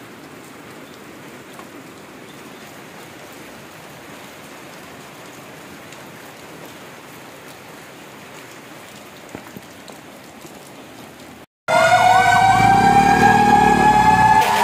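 A steady hiss of light rain. About eleven seconds in it cuts abruptly to a loud fire truck siren wailing, several tones rising and falling together.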